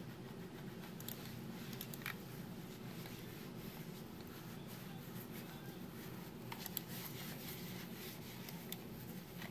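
A wet cleaning wipe being rubbed over a plastic computer mouse: faint, soft wiping and handling, with a few light ticks.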